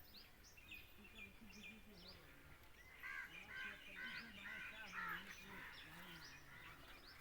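Birds chirping with short high calls, and a louder bird calling about five times in quick succession a few seconds in.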